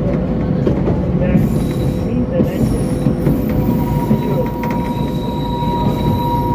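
760 mm narrow-gauge train running on curving track, its wheels squealing against the rails in thin steady tones over the low rumble of the running train. A second, higher squeal joins a little past halfway.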